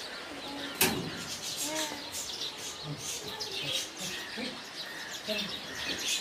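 Birds chirping, with one sharp knock or click about a second in.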